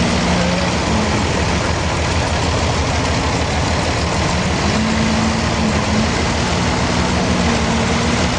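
Sawmill machinery running steadily: the continuous drone of a heavy engine, its pitch shifting slightly.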